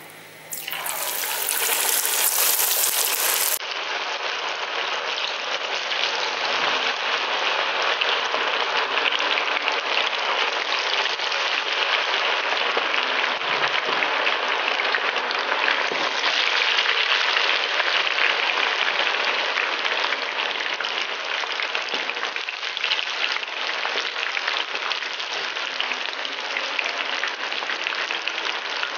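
Chicken pieces deep-frying in hot oil in a kadai on high flame: a loud, steady sizzle and crackle of the bubbling oil. It starts abruptly about half a second in.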